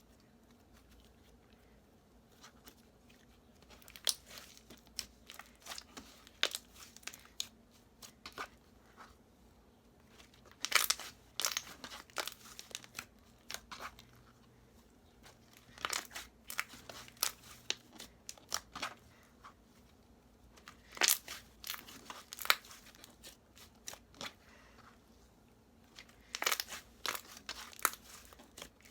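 Jelly slime squished and pressed by hand, giving clusters of sharp clicking and crackling pops with short pauses between. The clicks begin about four seconds in.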